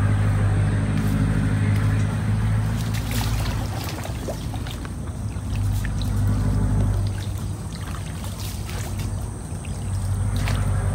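Small boat's engine running with a steady low drone that eases off for a few seconds in the middle, then picks up again.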